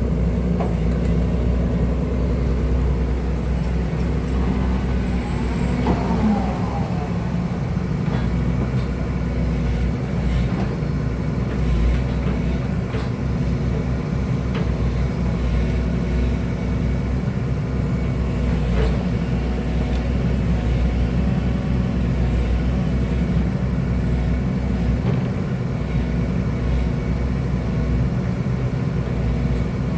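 Excavator's diesel engine running steadily at a constant pitch.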